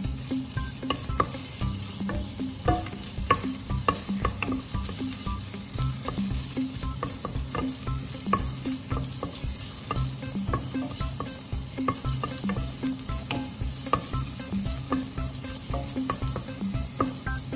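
Julienned ginger sizzling in hot oil in a stainless steel pot while a wooden spoon stirs it, with frequent light clicks and scrapes of the spoon against the pot.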